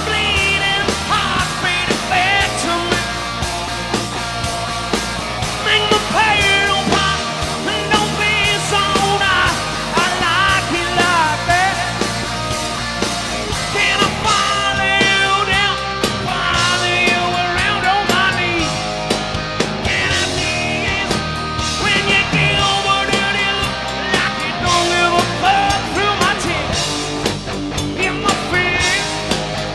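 Hard rock band playing live: electric guitars, bass guitar and drum kit, with a singer's vocal over them.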